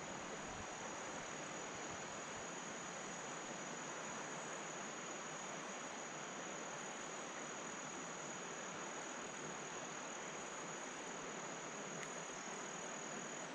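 Insects calling in the summer riverbank vegetation: a steady, unbroken high-pitched trill over a faint even hiss.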